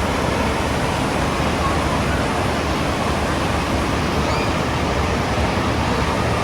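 Waterfall: water rushing and crashing in a steady, loud, even wash of noise.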